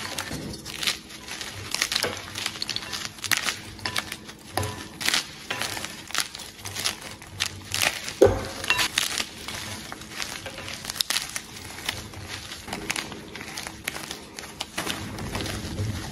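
Blocks of PNP gym chalk crushed and crumbled by hand in a glass bowl: dense, irregular crunching and crackling, with one louder crunch just past the middle.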